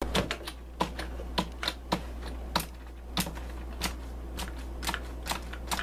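Typing on a computer keyboard: irregular clicks, a few a second with some louder strokes, over a steady low hum.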